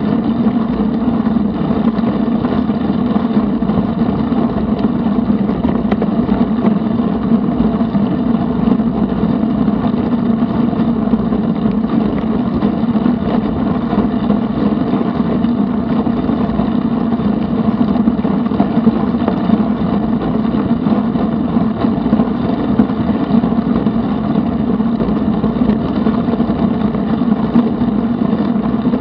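Steady wind and road noise on a bicycle-mounted action camera while riding on an asphalt trail: wind rushing over the microphone with tyre rumble underneath and a constant low hum, unbroken throughout.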